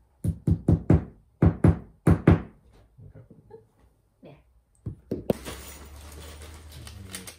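A hammer tapping wooden dowels into the holes of a flat-pack furniture panel: about nine sharp knocks in two quick runs, then a few lighter taps.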